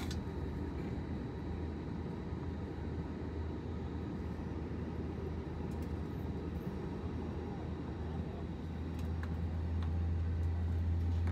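Steady low hum and rumble of a jet airliner's engines and air system heard inside the passenger cabin on the ground before takeoff, growing slightly louder near the end.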